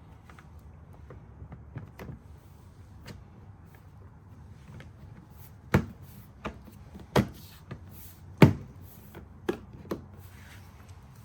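Hard objects knocking and clicking: a few light clicks, then about six sharp knocks in the second half, the loudest about eight and a half seconds in.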